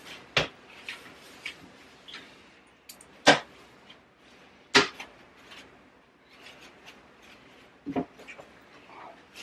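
Toilet seat and lid being lifted and lowered while the toilet is wiped down, giving four sharp knocks, the loudest two in the middle about a second and a half apart, with soft wiping between them.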